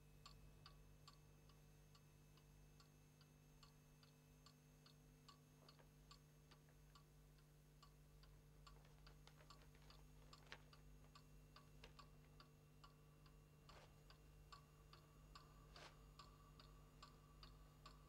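Faint clock ticking, a little over two ticks a second, with a few louder clicks and rustles in the second half as an envelope is handled, over a low steady hum.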